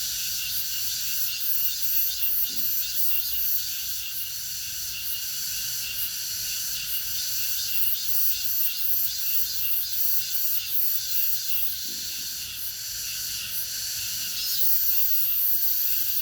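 Cicadas in full summer chorus: a dense, high-pitched buzz with a rapid pulsing beat, swelling louder near the end.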